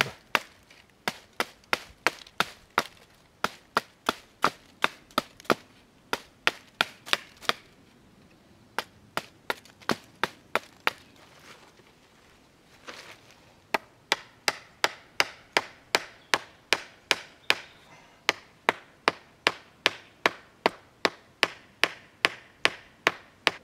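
Hatchet head knocking on the top of a wooden stake again and again, driving it into the soft ground: sharp knocks at about two to three a second, with two short pauses near the middle.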